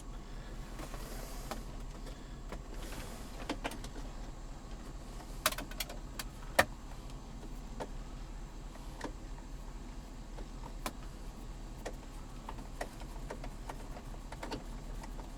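Scattered clicks and knocks of plastic console trim being handled and fitted in a 2005 Cadillac Escalade's centre console, with two sharper snaps about five and a half and six and a half seconds in, over a steady low hum.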